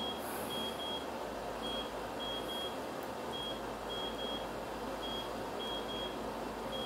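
Repeating high electronic beeps in a steady pattern, one beep then a quick pair, the cycle coming round about every second and a half to two seconds, over a steady background hiss.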